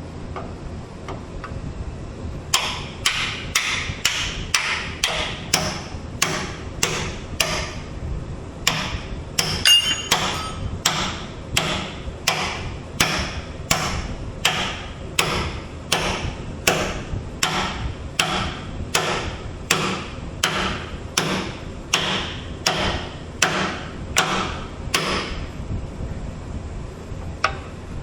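Steady hammer blows on metal, a little more than one a second with a ringing clang on each strike, working a pivot pin or bushing on a Skyjack SJIII 3219 scissor lift during bushing replacement. The blows start a couple of seconds in, pause briefly near the end, then resume with a few more strikes.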